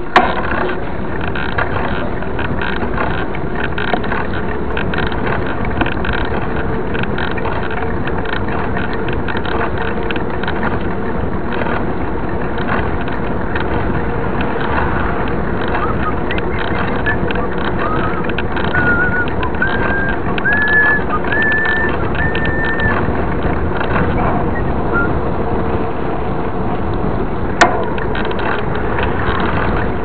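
A mountain bike riding on an asphalt road, heard from a camera mounted low on the bike: a steady tyre roar with the mount rattling and wind on the microphone. Midway through, a short run of whistle-like tones steps upward in pitch, and a single sharp knock comes near the end.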